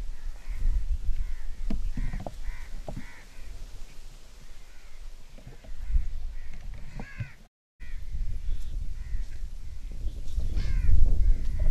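Crows cawing over and over, several calls in quick runs, over a low rumble on the microphone.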